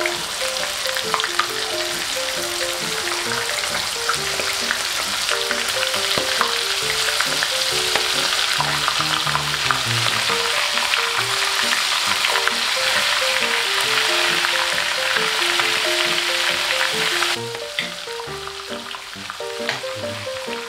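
Coated shrimp deep-frying in a pan of hot oil: a dense crackling sizzle full of sharp pops, which drops suddenly to a quieter sizzle about 17 seconds in. Light background music with a stepping melody plays under it.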